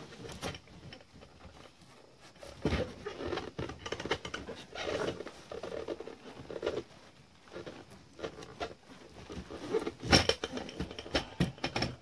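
Rubbing, scraping and knocking of a fuel cell's surge tank ('black box') being worked out of the tightly packed foam inside the cell, with the loudest knocks about ten seconds in.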